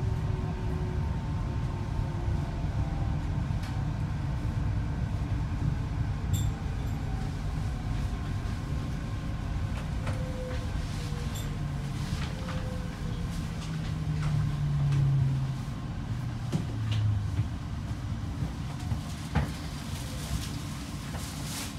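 Canada Line SkyTrain running on its guideway with a steady low rumble, its electric drive whining in tones that slide down in pitch as the train slows into the station. A few sharp clicks come near the end.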